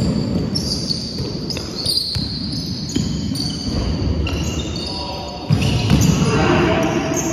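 Basketball game in an echoing sports hall: the ball bouncing and players' sneakers squeaking and thudding on the wooden court, with a louder burst of play about five and a half seconds in.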